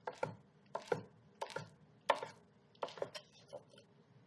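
Chef's knife cutting grilled cactus paddles (nopales) into strips on a wooden cutting board: a series of light knocks of the blade on the board, some in quick pairs.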